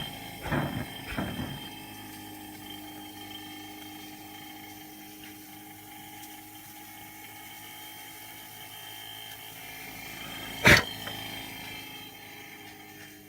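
Saito Heron's ball model steam engine running with a steady humming whir. A few short irregular noises come in the first second and a half, and one sharp, loud knock comes near the end.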